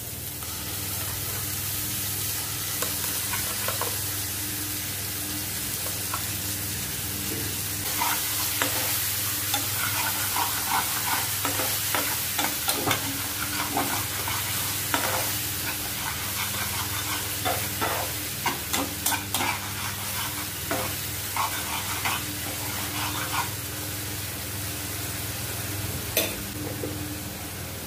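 Tomato, garlic and ginger paste sizzling in hot oil in a frying pan, with a spatula stirring it and scraping and tapping against the pan through the middle stretch. A steady low hum runs underneath.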